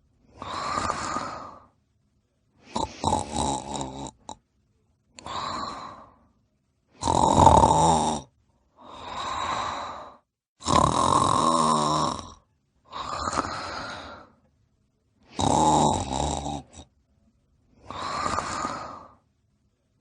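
Snoring: a run of about nine separate snores, each roughly a second or so long with a rattling texture, broken by short silent gaps.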